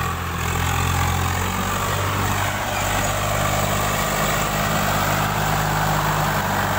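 Swaraj 744 FE tractor's diesel engine running steadily under heavy load as the tractor and its loaded trolley bog down in soft mud and fail to climb; the engine note shifts about two seconds in.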